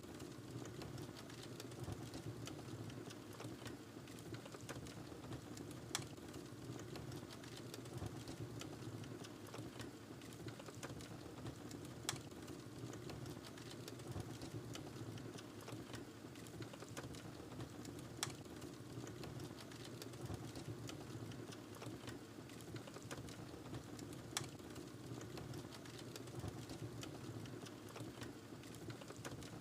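Wood fire crackling in a fireplace: a steady low rush from the flames with frequent small crackles and a sharper pop about every six seconds.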